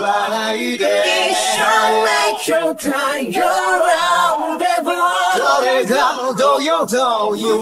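Male singing voice with no instrumental backing: an isolated vocal track from a Japanese rock song, sung lines following one another with brief breaths between them.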